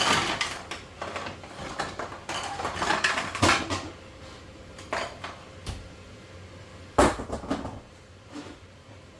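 Hard objects being handled, clattering and scraping, with a few separate sharp knocks; the loudest knock comes about seven seconds in.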